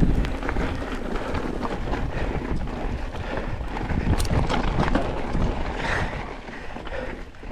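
Mountain bike riding down a dirt trail: wind buffeting the microphone over the rumble of the tyres, with scattered clicks and knocks from the bike over bumps.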